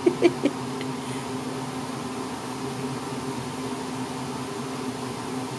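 A steady mechanical hum of room tone, with a few brief muttered vocal sounds in the first half-second.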